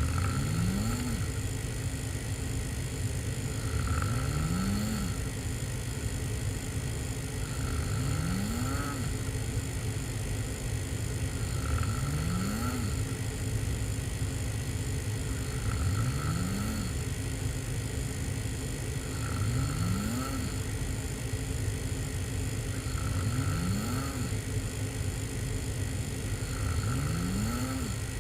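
A person snoring hard, open-mouthed while lying on their back: about eight snores, one roughly every four seconds, each rising in pitch over about a second, over a steady low rumble.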